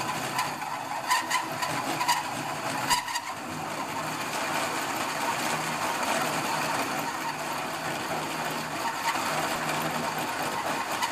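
Power drill running steadily with a hole saw cutting into a metal panel. In the first three seconds there are a few short, sharp squirts from a spray bottle aimed at the cut.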